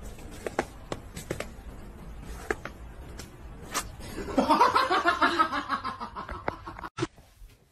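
A person laughing in a run of breathy, pulsing bursts for about three seconds, starting about four seconds in, after a few light taps and knocks.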